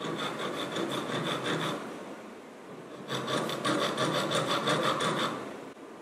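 Hand file rasping back and forth along the edge of a block of green jeweller's carving wax, in two bursts of quick strokes, about eight a second, with a short pause between them.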